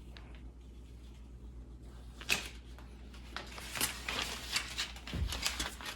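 Paper backing and vinyl rustling and crinkling in irregular scratches as a precut vinyl window decal is peeled off its backing and pressed onto the glass, starting about two seconds in, with a low thump near the end.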